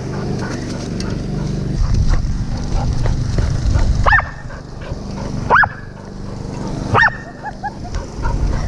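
Labrador barking three times, about a second and a half apart, over a steady low rumble.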